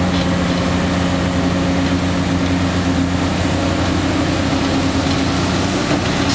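Caterpillar 345C excavator's diesel engine running steadily under load, a constant low hum with a few steady tones, as the machine lifts its clamshell grab full of gravel.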